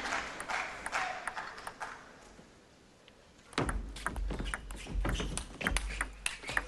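Applause dies away, then a table tennis rally starts: the celluloid ball clicks sharply off the bats and table several times in quick, uneven succession, with low thuds underneath.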